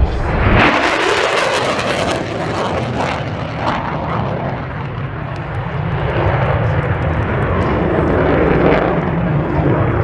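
Jet noise from the F-35A Lightning II's single Pratt & Whitney F135 afterburning turbofan during its display. A loud, hiss-rich blast comes in about half a second in, then a steady, heavy rumble carries on.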